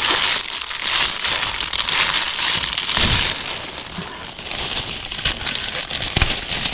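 Plastic sheeting crinkling and crackling as it is pulled and worked loose from its staples, with a couple of dull knocks against the wood.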